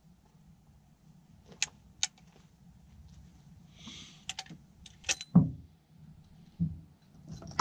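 Scattered metallic clicks and clinks, with a couple of dull knocks, the loudest about five seconds in. They come from handling a Springfield trapdoor rifle's breech and fetching the next cartridge while reloading between shots.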